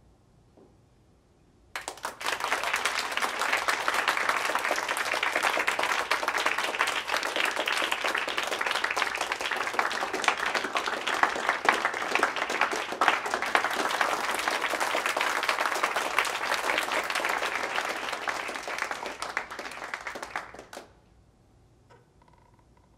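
Audience applauding: many hands clapping in a dense, steady patter. It starts suddenly about two seconds in and stops abruptly near the end.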